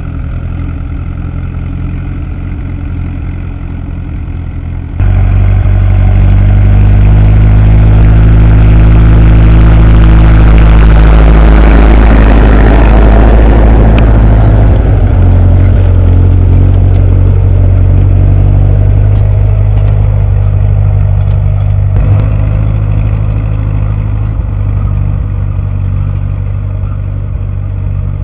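Ursus C-355 tractor's three-cylinder diesel engine running steadily under load while pulling a disc harrow. About five seconds in the sound jumps louder, swells as the tractor and the discs working the soil pass close, then slowly fades.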